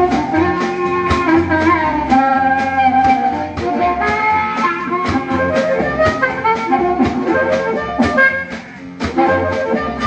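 Jazzy swing-blues band music: a drum kit keeps a steady beat under a held, wind-instrument lead line.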